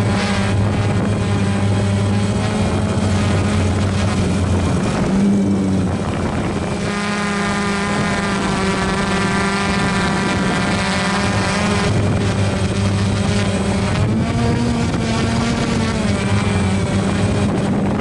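Toro zero-turn riding mower's engine running steadily under mowing load, a constant drone whose pitch shifts a little now and then.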